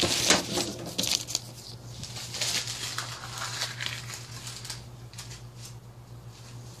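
Rustling and crinkling of paper and craft supplies being gathered up and put away, with a few sharp clicks and knocks at first. The handling fades away over the last couple of seconds.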